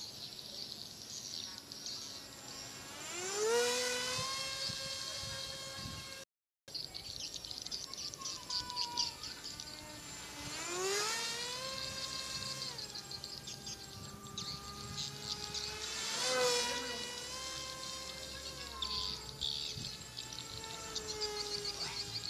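Electric motor of a homemade foam RC Yak-130 jet whining in flight, its pitch rising sharply with throttle three times, holding and then stepping down, loudest at each climb in pitch as it passes close. Insects chirp steadily underneath.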